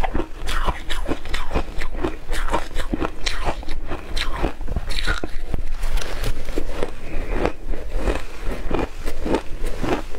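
Shaved ice being bitten and chewed, a dense run of crisp crunches one after another.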